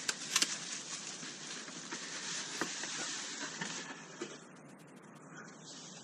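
Bubble wrap rustling and crinkling as a packed model-airplane wing is handled and lifted out of its cardboard box, with a few sharp clicks. The rustling dies down after about four seconds.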